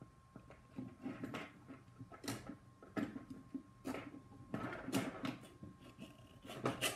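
Threaded rods being forced by hand through the holes of a 3D-printed stock: irregular scraping, clicks and knocks, coming thicker toward the end.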